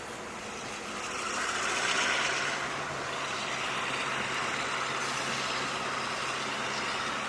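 Diesel-electric locomotive engine running at a steady low throb, with a hiss that swells and fades about two seconds in.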